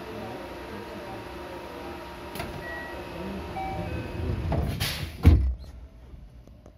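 JR West 223 series 2000 electric train pulling away from a station on rain-wet rails, the kind of start on which its motors are prone to wheel slip; the running noise builds with short whining motor tones. A single heavy thud about five seconds in is the loudest sound, and the noise drops away after it.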